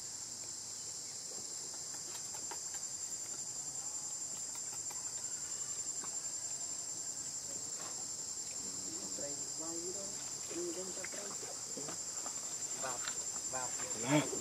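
Steady high-pitched insect chorus, a continuous shrill drone. Faint short calls come in during the second half, and a louder brief call comes just before the end.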